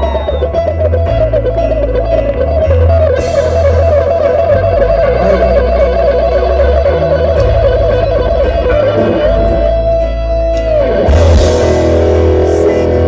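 Live rock band playing, led by an electric guitar solo of fast note runs over bass and drums. About nine seconds in the guitar holds one long bent note, with cymbal crashes about three seconds in and again near eleven seconds.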